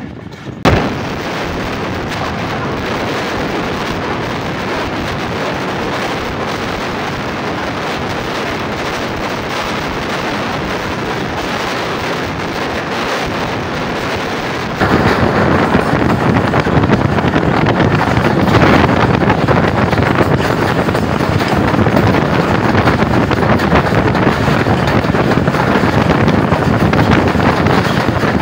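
Rushing wind and running noise of a moving train, heard from the open side window of the locomotive cab, with wind buffeting the microphone. About 15 seconds in it abruptly gets louder.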